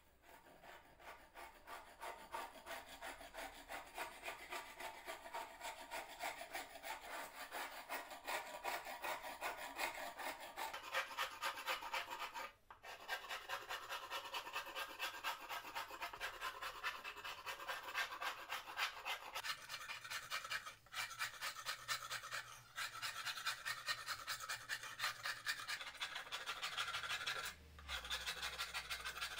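Metal scraper scraping softened, wrinkled paint off wooden bench slats in quick, repeated strokes, breaking off briefly a few times.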